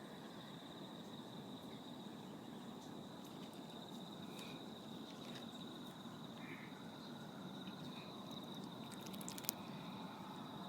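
An insect chirring in one continuous high trill over a steady low background rumble, with a few small clicks near the end.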